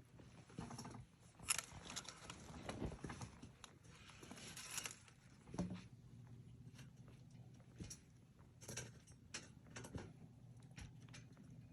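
Quiet, irregular rustling and crunching with scattered soft clicks, louder in short clusters.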